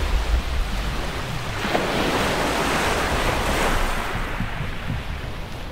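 Ocean surf washing and rushing, swelling to a peak in the middle and easing off toward the end.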